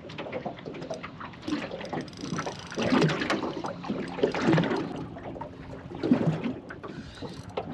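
Water lapping and sloshing against the hull of a small fishing boat, with irregular knocks and louder surges every second or two.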